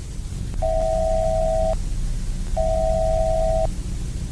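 Electronic two-tone alert beep, sounding twice, each beep about a second long with a short gap between, over a low steady hum and hiss.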